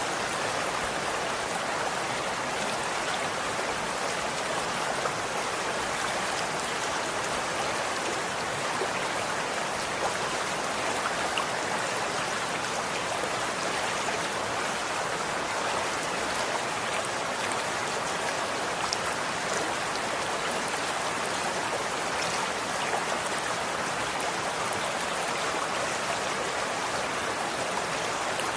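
Running water flowing steadily, a continuous even rush with faint scattered droplet ticks.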